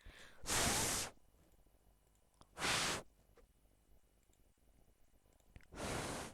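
Three short puffs of breath on a microphone during a mic test, a rushing noise with no pitch: one about half a second in, one near the middle and one at the end.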